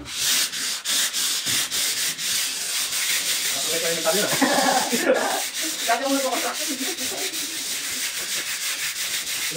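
A painted interior wall being hand-sanded: a steady, raspy hiss of abrasive rubbing on the wall in short, quick strokes, starting abruptly.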